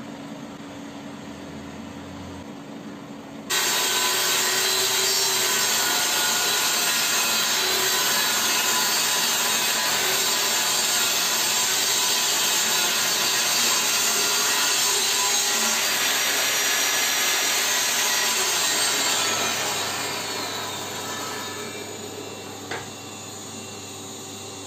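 Modern M608 table saw (1200 W) ripping a solid pine board: the saw cuts in abruptly about three and a half seconds in and runs loud and steady for about fifteen seconds. It then winds down with a falling whine. A quieter steady hum lies under it before the cut and after it.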